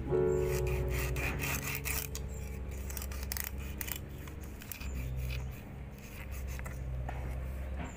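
Large kitchen knife sawing along a snakehead fish's backbone against a wooden cutting board: a rough rasping scrape in many short, repeated strokes.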